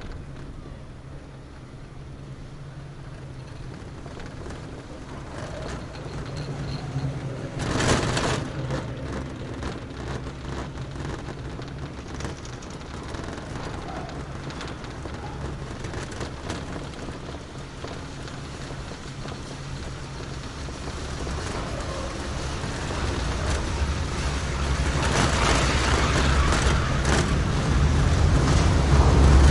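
Ride on a Taihei Sakudo detachable high-speed quad chairlift: the running lift gives a steady low rumble with a hum. There is a brief louder clatter about eight seconds in, and the rumble grows steadily louder over the last third.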